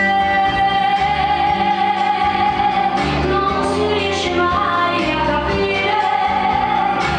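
Italian liscio ballroom dance music: a melody of long held notes over a steady rhythmic accompaniment.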